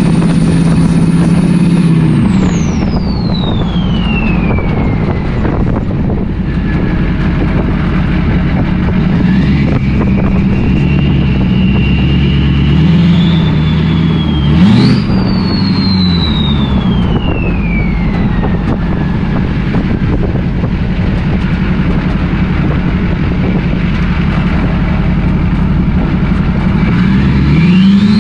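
6.6-litre LLY Duramax V8 turbodiesel with a 64mm turbo and straight-piped 3-inch downpipe, driving: the turbo's high whistle climbs as it spools up under throttle and slides down as the driver lets off, several times, over the diesel's engine note rising and falling with it. A brief sharp noise about halfway through is the loudest moment.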